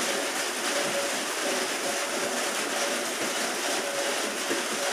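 Steady, even background hiss with a faint hum that comes and goes.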